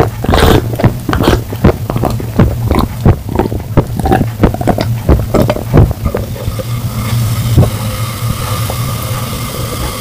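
Close-miked gulping as a man drinks carbonated soda from a glass without stopping: a quick run of swallows, about three a second, thinning out after about six seconds.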